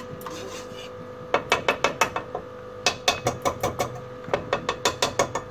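Wire whisk clacking against the sides and bottom of a metal pan as it beats thick reduced milk. The clicks come fast, about five a second, in three runs of about a second each, the first starting about a second in.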